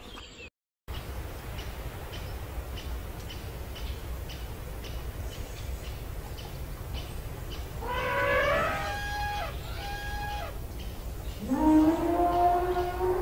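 Elephant calls over steady low background noise. About eight seconds in, a rising pitched call breaks into two short parts; from about eleven and a half seconds a louder, lower call is held for several seconds. There is a brief dropout to silence just after the start.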